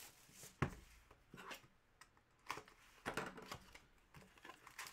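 Cardboard hockey card hobby box being handled and its lid flipped open: a few faint taps and knocks of cardboard against the desk, the sharpest about half a second in and a small cluster near the end.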